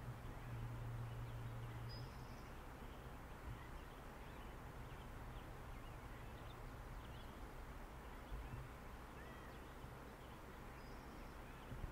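Quiet outdoor ambience: a steady faint hiss with scattered faint bird chirps and short calls, and a low hum in about the first second.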